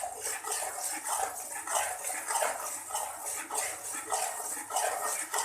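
A metal spoon scraping and stirring thick roasting chana dal paste in a pan, in regular strokes a little under two a second.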